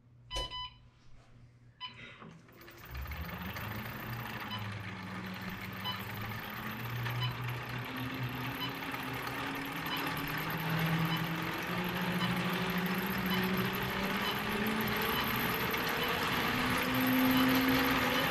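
Jet airliner engines spooling up for takeoff: a steady rushing hiss starts about three seconds in, with a whine that climbs slowly in pitch and grows louder, and faint high beeps repeat at an even pace. A couple of short clicks come just before.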